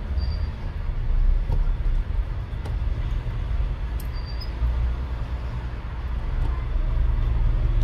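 A steady low rumble, with a few faint small clicks from a precision screwdriver and tiny screws being fitted into a phone's plastic midframe.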